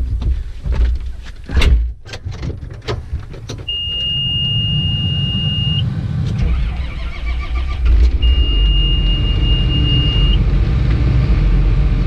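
Knocks and clunks of someone climbing into a John Deere 7920 tractor cab. Then the tractor's six-cylinder diesel starts and runs, heard from inside the cab, growing louder a few seconds later. A high steady warning beep sounds twice, about two seconds each time.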